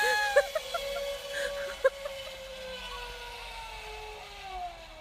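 Zip-line trolley pulley whining as it rolls along the cable. The pitch falls slowly and the sound fades as the rider slows toward the end of the line.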